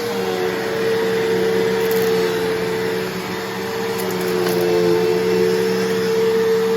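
Bissell CleanView Revolution Deluxe upright vacuum running steadily, with a motor whine over a strong airflow hiss. Right at the start its note drops slightly and a lower hum comes in, and a few faint ticks are heard.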